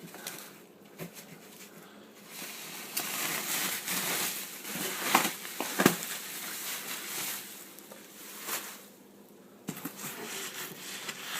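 Packing material and cardboard rustling and crinkling as the unit is unpacked from its box, with a couple of sharp knocks about halfway through and a brief lull near the end.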